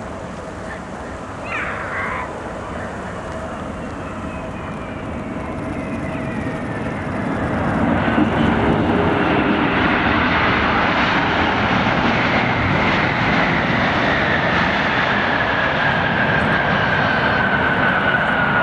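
Boeing 777 jet engines growing louder over the first several seconds and then holding loud and steady, a rush of engine noise with a high whine that slowly falls in pitch as the airliner passes.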